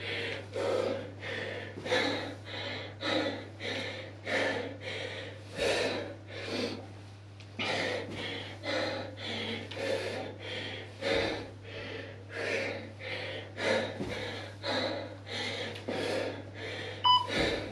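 A man breathing hard and rhythmically while doing lunges, forcing out a short, sharp breath about twice a second. Short electronic beeps start near the end.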